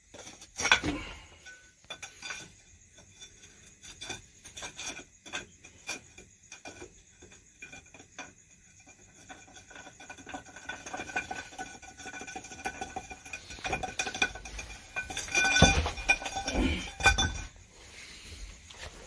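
Hard objects clinking and clattering in a string of short sharp knocks. A ringing tone builds in the second half and is loudest near the end.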